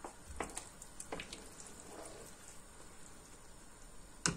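A wooden spoon stirring okra stew in a granite-coated pot: faint wet sloshing of the sauce with a few light taps of the spoon against the pot, and sharper knocks right at the end.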